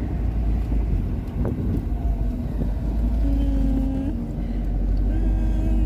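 Steady low road rumble of a moving car, heard from inside the cabin, with a faint steady hum over it.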